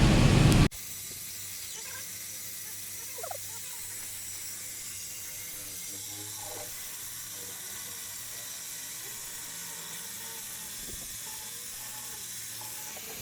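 2017 Mustang's 3.7 L V6 running loudly through a muffler-delete exhaust, cut off abruptly under a second in. A faint steady hiss with a low hum and a few scattered faint clicks follows.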